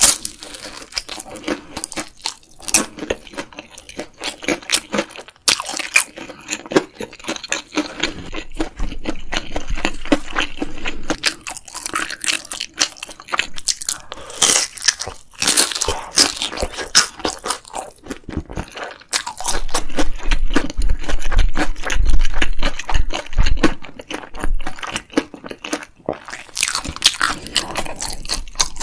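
Close-miked eating: crunchy bites and chewing, with dense crackling crunches throughout.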